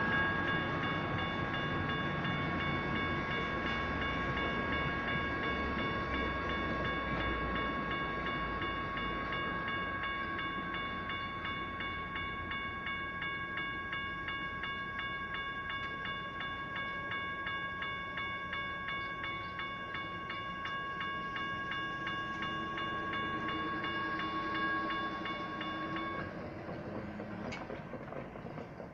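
Electronic railroad crossing bells (General Signals Type 1) ringing rapidly, over the low rumble of a passenger train fading as it moves away. The bells cut off about 26 seconds in.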